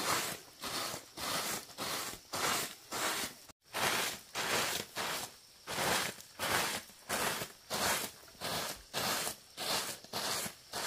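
Repeated rustling, scraping strokes, about two a second, with a brief dropout about three and a half seconds in.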